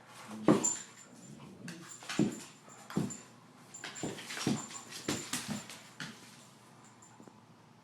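Dogs playing, giving a string of about eight short, sharp sounds over several seconds, the loudest about half a second in.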